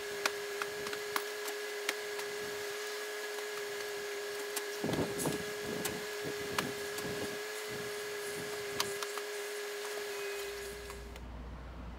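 Cardboard cases of frozen açaí being handled and stacked into a food truck at a loading dock. There are scattered knocks and, from about five seconds in, a run of heavier thuds, all over a steady whining hum that stops near the end.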